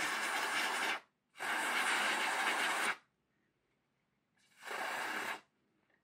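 Aerosol cleaning spray hissing out in three bursts, the middle one the longest, to flush old grease and gunk out of a model locomotive's motor bogie.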